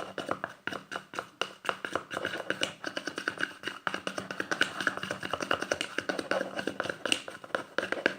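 Fast stirring of thick PVA-glue slime mixture in a bowl: a utensil tapping and clicking rhythmically against the bowl and squelching through the glue, about four or five strokes a second, while it is whipped to form small bubbles.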